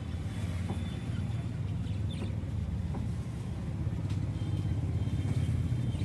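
Steady low rumble of street traffic, with a few faint high chirps from caged budgerigars.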